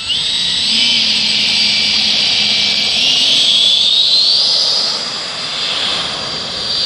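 90mm electric ducted fan of an RC jet running at takeoff power on 6S: a high whine over rushing air that climbs in pitch in the first second and again around three to four seconds in, as the throttle is opened for the takeoff roll. It eases slightly in loudness after about five seconds.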